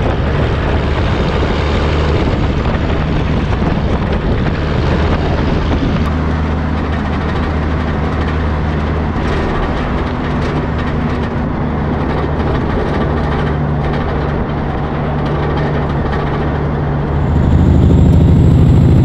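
Peterbilt cabover semi-truck's diesel engine pulling steadily at highway speed, a constant low drone under wind and road noise. It gets a little louder near the end.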